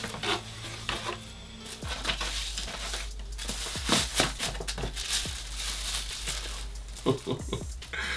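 Rustling and crinkling in short bursts as a cardboard shoebox is opened and its paper insert and plastic wrapping are handled, over background music whose bass line gets stronger about two seconds in.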